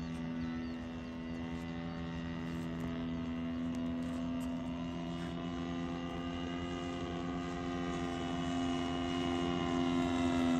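Hangar 9 Pitts S-2B RC biplane's 50–60cc engine and propeller droning at a steady pitch in flight, growing slowly louder toward the end.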